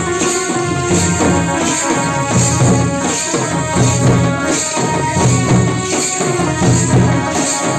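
Live Jhumar folk music: hand-played barrel drums (mandar) beating a fast, driving rhythm, with metallic cymbal-like clashes on a steady pulse and a held melody line over it.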